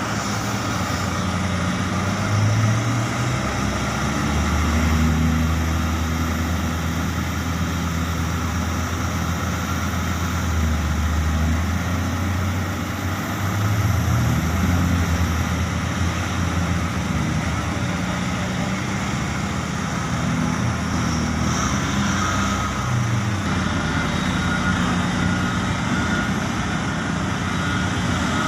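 Heavy diesel engine of a large mining machine running under load, its pitch rising and falling several times as it works.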